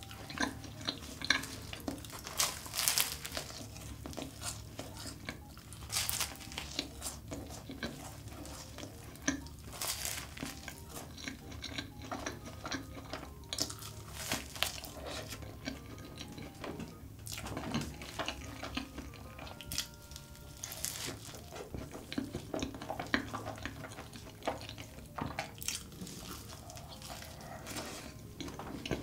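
Close-miked eating of a large choux cream puff coated in melted Nutella chocolate: bites into the crisp pastry shell and chewing of the custard-filled pastry, heard as irregular crackles and mouth clicks, with a few louder crunches.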